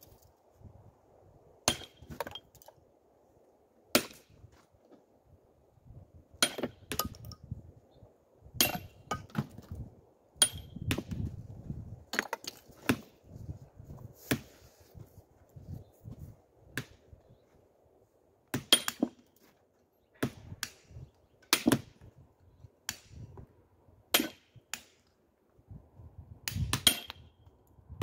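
Steel hammer striking a chisel into Indiana limestone as the stone is hand-dressed: sharp metallic taps at an irregular pace, roughly one every second or so, some with a brief ringing.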